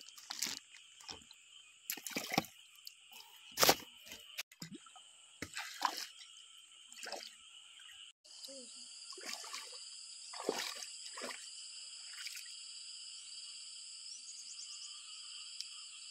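A red plastic bag crinkling and rustling, with freshwater mussel shells knocking together as hands sort them, in sharp irregular clicks. After about eight seconds the bag gives way to water sloshing and splashing as someone wades and gropes in a shallow muddy pond. A steady high-pitched animal chorus carries on behind throughout.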